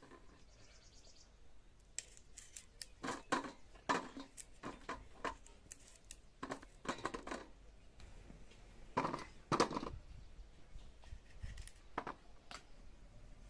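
A knife cutting through small, hard wild tubers held in the hand, with irregular clicks and knocks as blade and cut pieces hit a steel plate. The loudest knocks come about nine to ten seconds in.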